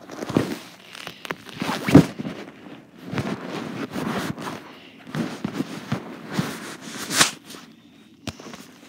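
Handling noise from a phone camera being picked up and carried: irregular rustling and scraping as the microphone rubs against cloth, with two sharp knocks, one about two seconds in and one about seven seconds in.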